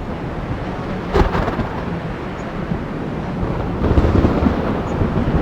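Thunderstorm recording: a steady wash of rain with thunder, a sharp crack about a second in and a louder rumble about four seconds in.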